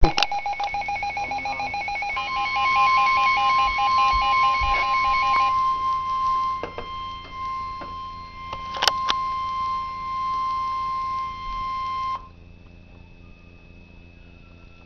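NOAA Weather Radio emergency alert: rapid, rhythmic electronic beeping over the first five seconds, then the steady 1050 Hz Warning Alarm Tone held for about ten seconds and cutting off suddenly about twelve seconds in, leaving faint radio hiss. The tone announces a flash flood warning.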